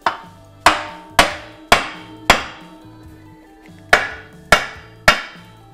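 A steel hammer striking a stuck cast-iron part on the front of a Chrysler 413 V8 block to knock it loose. There are eight sharp, ringing metal blows: five about half a second apart, a short pause, then three more.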